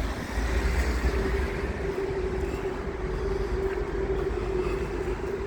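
Wind rumbling on the microphone outdoors, with a steady humming tone that comes in about a second in, like a vehicle's drone.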